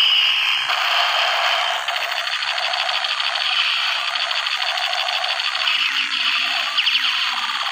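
Battery-powered toy sniper rifle's electronic sound effect through its small speaker: a fast, dense rattling buzz of mock gunfire, with a few short chirps near the end.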